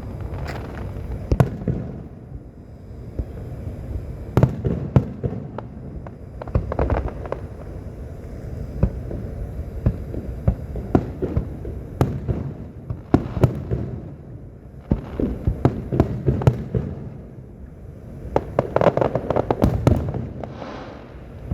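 Fireworks display: a continuous run of sharp bangs and crackling bursts over a low rumble, with several dense clusters of rapid reports.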